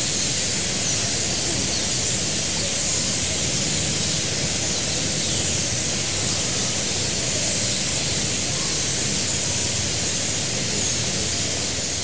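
A large roost of common starlings chattering at dusk: a dense, steady wall of countless overlapping chirps and whistles.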